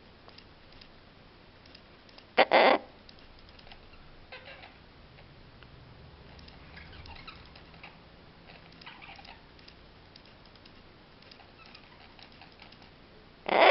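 Pet parrot giving two short, loud calls, one about two and a half seconds in and one at the end, with a few weaker calls and faint scratchy clicks between.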